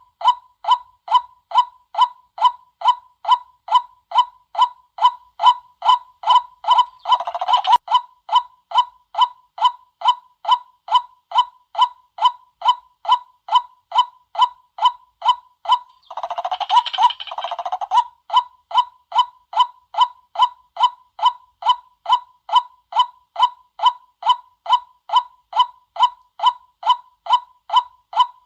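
White-breasted waterhen call used as a lure, a short 'kwak' note repeated evenly about two times a second. Twice, at about 7 seconds and about 17 seconds, a second or so of denser chattering calls breaks in over the rhythm.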